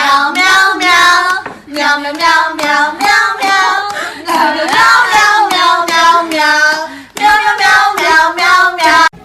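A high, child-like voice singing a string of short, rhythmic notes, loud and without clear words, ending abruptly near the end.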